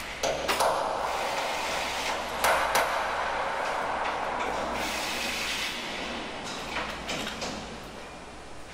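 Steady background rumble and hiss, easing off near the end, with a handful of short knocks and clicks: a pair near the start, another pair about two and a half seconds in, and three more near the end.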